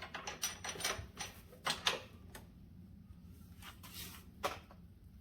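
Scattered metal clicks and knocks of hand tools on the ATV's suspension parts: a quick run of light taps in the first second, a couple of sharper knocks about two seconds in, and one more near the end.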